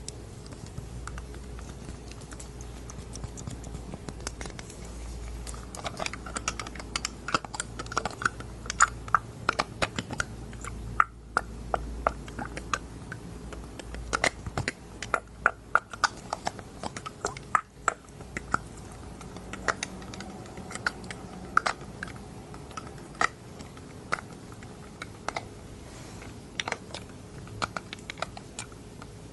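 An eyedropper handled close to a binaural microphone for ASMR, making many quick, irregular small clicks and taps in uneven clusters.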